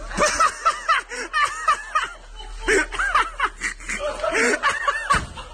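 People laughing: a string of high-pitched laughs.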